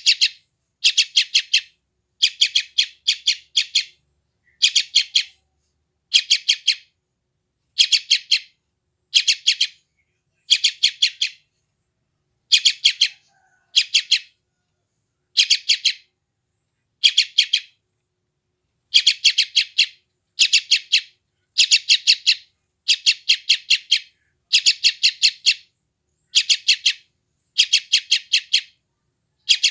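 A young yellow-vented bulbul (trucukan) calling: short bursts of four to six quick, high chirps, about one burst every second and a half, with a couple of longer pauses.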